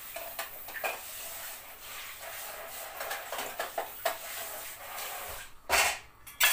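A pot of yogurt soup bubbling as it comes to the boil, with irregular small pops over a steady hiss. A short loud knock comes near the end.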